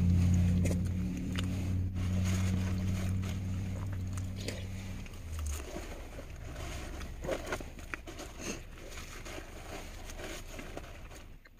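The vehicle's engine idling with a steady low hum, switched off about five seconds in. Scattered faint clicks and rustles of forks and food containers follow.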